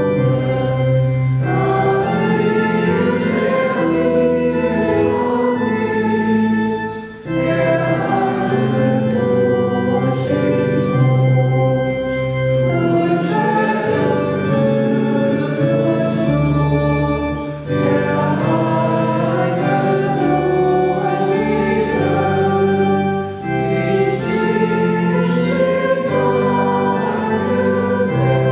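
Church organ accompanying a congregation singing a hymn in held chords. Brief pauses between the lines come about 7, 18 and 23 seconds in.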